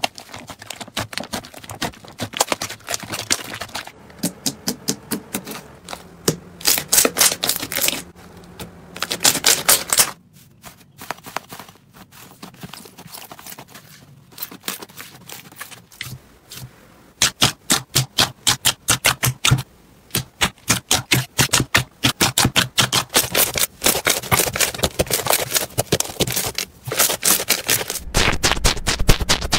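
Slime being squeezed, kneaded and poked by hand, making runs of sticky, wet clicks and pops. In the second half these come as quick, regular squeezes, about two or three a second. Music with a low beat comes in near the end.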